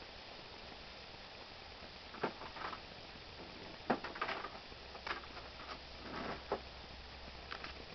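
A flat-coated retriever and a Jack Russell terrier play-fighting on grass: a scattering of short scuffling noises and clicks, the sharpest about four seconds in.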